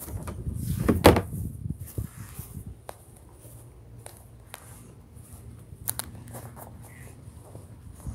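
Footsteps on grass and phone handling noise as someone walks across a lawn, with a loud brief rustling knock about a second in and a few sharp clicks around six seconds.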